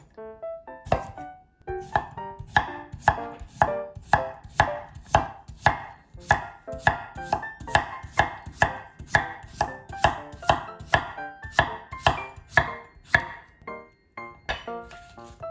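Knife chopping food on a cutting board in a steady rhythm of about two strokes a second, pausing briefly near the end; soft piano background music underneath.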